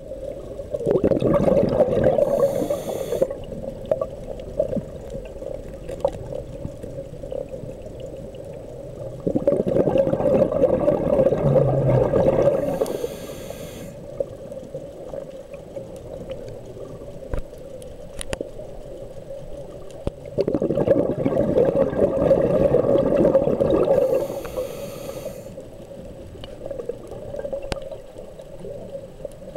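Scuba diver breathing through a regulator underwater: three long, bubbling exhalations about ten seconds apart, each ending in a short hiss as the next breath is drawn.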